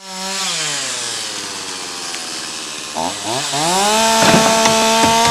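Chainsaw's two-stroke engine winding down from high revs to a lower speed, then revved back up about three seconds in and held at full throttle, with sharp cracks of wood and brush being cut.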